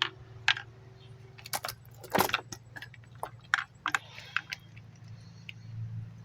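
Irregular sharp clicks and light rattles of small chainsaw parts and a tool being handled while a fuel line is fitted, over a low steady hum.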